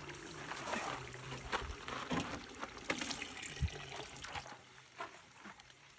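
Water trickling as it is poured, with a few small knocks scattered through it.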